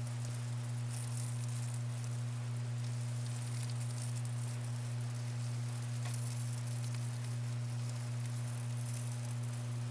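Steady low electrical hum with an even hiss over it and no distinct event.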